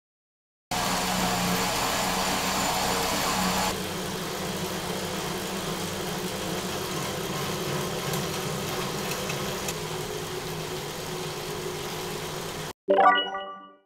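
A road bike ridden on indoor trainers at a steady 90 W: a continuous whir of the tyre and drivetrain running on rollers. It is louder for the first three seconds or so, which fits the plain free rollers, then a little quieter on the Wahoo KICKR ROLLR. About a second before the end it stops, and a short bright chime rings and fades.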